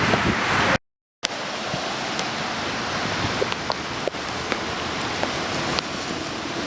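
Steady hiss of heavy rain, with scattered drops ticking now and then. The sound drops out completely for under half a second about a second in.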